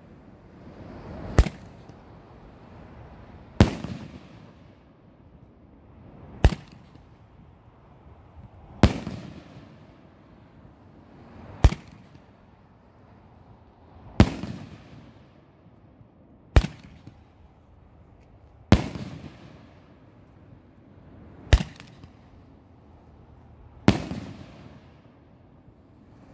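Daytime firework shells from an 8-shot candle bursting overhead: a regular series of sharp bangs, about one every two and a half seconds, ten in all, each trailing off in echo.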